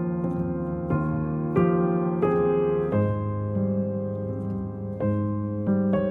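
Background music: a soft piano piece, with sustained chords and notes struck every second or so.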